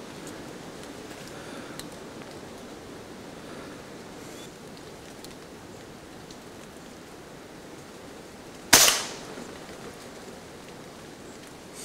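One shot from an Air Arms S510 Tactical .25 FAC pre-charged air rifle about nine seconds in: a single sharp crack with a short tail. Steady rain hisses throughout.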